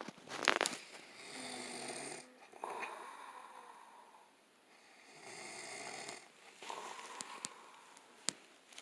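A man snoring in his sleep, in two slow breath cycles, each a drawn-out snore followed by a shorter one. There is a brief loud noise about half a second in and a sharp click near the end.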